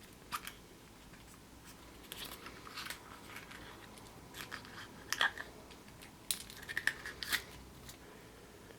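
Hands handling Kinder Surprise eggs and their plastic toy capsules: scattered crinkles, snaps and small plastic clicks, loudest about five seconds in and again in a quick run of clicks past six seconds.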